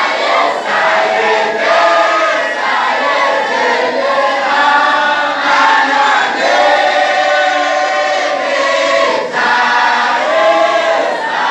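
A group of men and boys chanting a wadifa, the Comorian Sufi dhikr, together in unison in long sung phrases.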